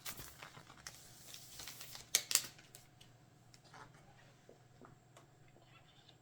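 Picture frame and paper being handled: the insert photo sliding out with a papery rustle, then two sharp clicks about two seconds in, followed by faint small taps.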